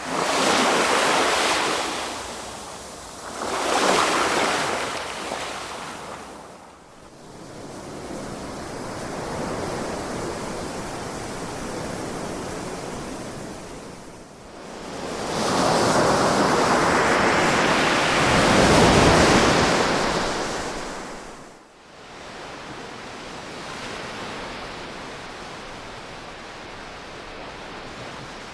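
Ocean waves washing onto a shore, swelling and falling back in turn. Two surges come in the first few seconds, then a softer wash. About halfway through, a bigger wave breaks and runs for several seconds before it drops away sharply, and a quieter wash follows.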